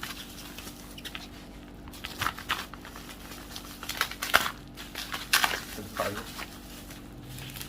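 Plastic packaging crinkling and rustling in irregular bursts as a parcel pouch is handled and opened, over a faint steady hum.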